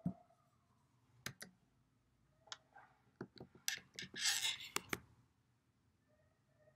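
A run of sharp, separate clicks and taps from hands handling the recording device, with a short rustle about four seconds in.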